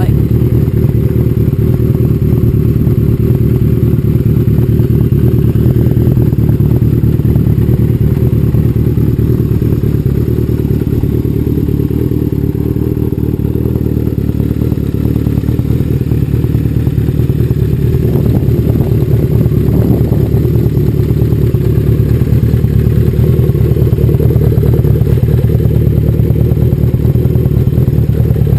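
1986 Kawasaki ZL600 Eliminator's inline-four engine idling steadily in neutral, loud because the baffles have been removed from its exhaust.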